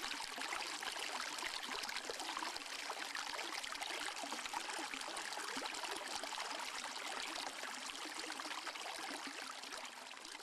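Steady rushing of a stream's flowing water, fading out near the end.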